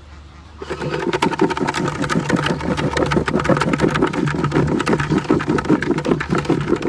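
A small engine running close by, with a rapid, even pulsing beat, starting up about half a second in and cutting off near the end.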